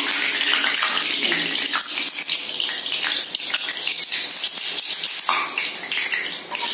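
Hot oil sizzling and crackling steadily in a kadai as clam meat vadas deep-fry.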